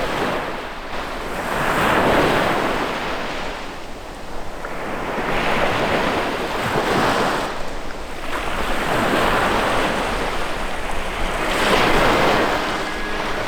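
Sea waves washing onto the shore, swelling and fading about four times, every few seconds, with strong wind blowing over the microphone.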